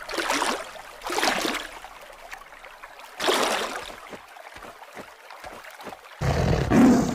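Tiger sound effects: three short rough growls, a run of soft thuds as the tiger pads along, then a longer, louder tiger roar near the end.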